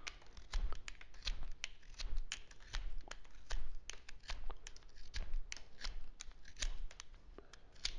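Stanley utility knife blade shaving wood off a pencil to sharpen it: a run of short, sharp scraping strokes, irregular, about two or three a second, thinning out near the end.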